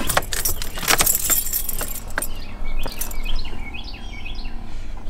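A bunch of car keys jangling, with a run of clicks and knocks, busiest in the first two seconds and then quieter handling.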